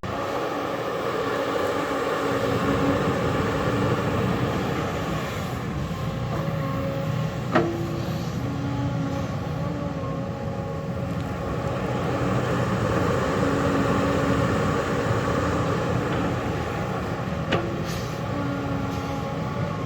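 Diesel engine of a JCB earthmoving machine running steadily under work, its note swelling and easing, with two sharp knocks, one about seven and a half seconds in and one near the end.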